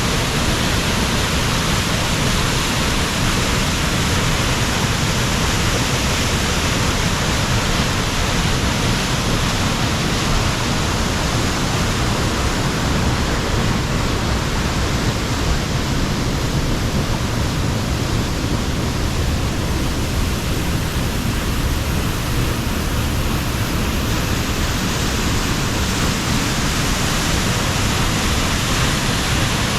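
Loud, steady rush of falling water.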